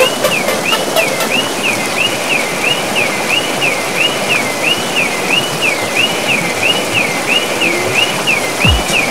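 Fast muddy floodwater rushing through a street and car park, under a high electronic warble that rises and falls about twice a second. A bass beat starts just before the end.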